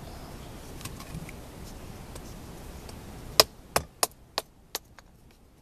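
A heavy fixed-blade knife (Schrade SCHF10) hacking at a dead pine knot: five sharp chopping knocks about three seconds in, roughly three a second, the first the loudest.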